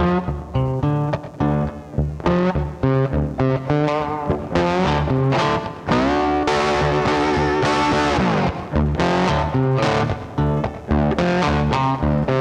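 Instrumental background music led by a distorted electric guitar, with a steady beat and held notes that bend in pitch.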